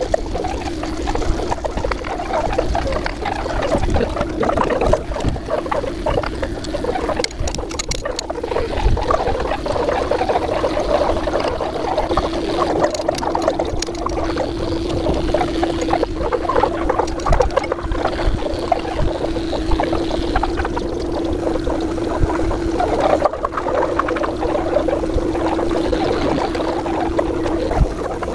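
Electric pet hair clipper running with a steady buzzing hum while shaving a dog's matted coat, an irregular rustling over the hum.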